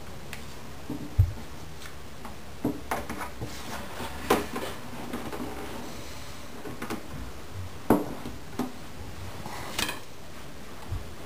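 Scattered handling sounds: light wooden knocks, taps and a few sharp clicks, with one heavier thump about a second in, as binding is pressed and taped onto the wooden body of an archtop guitar on a workbench.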